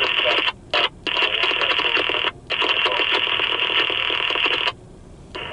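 Railroad radio transmission coming through a scanner's speaker: a narrow, crackly voice with a few short breaks, cutting off shortly before the end.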